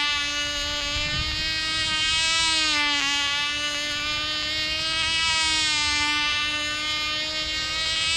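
Sig Dewey Bird control-line model airplane's small engine running as a high, buzzing whine, its pitch and loudness rising and falling gently about every two to three seconds as the plane circles the pilot.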